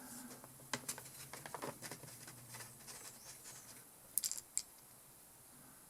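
Faint clicks and light scraping of small carburetor parts being handled as the cover over the metering diaphragm of a two-stroke carburetor is taken off. A short cluster of sharp little metallic clicks comes about four seconds in.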